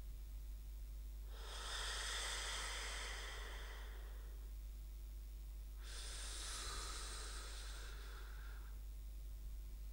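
Slow, airy breathing, two long breaths a few seconds apart, over a steady low hum.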